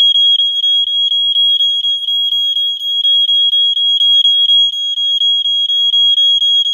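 Piezo electronic horn of a 1980s BRK-made Sears Early One smoke detector sounding its alarm. It gives one loud, piercing high tone that pulses evenly, about four beats a second.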